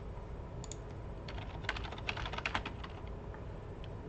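Typing on a computer keyboard: a quick run of keystrokes in the middle, with a couple of separate clicks before and a few after.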